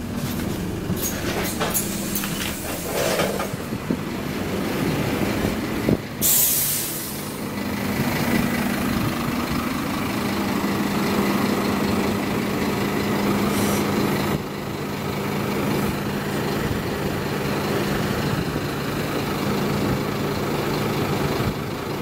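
Scania OmniCity double-decker bus: a few knocks in the first seconds, a loud hiss of released compressed air about six seconds in, then the bus's diesel engine idling with a steady hum.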